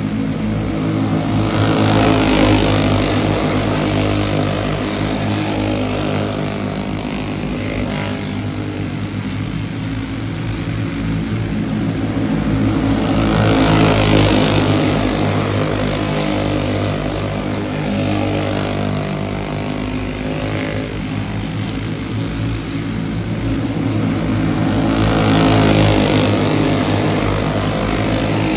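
A pack of racing karts lapping, their engines running together. The sound swells three times, about every twelve seconds, as the pack comes past.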